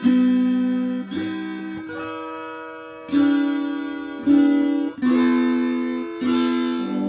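Background music: a plucked string instrument like a guitar playing a slow melody. Each note is struck sharply and left to ring out, with a new one roughly every second.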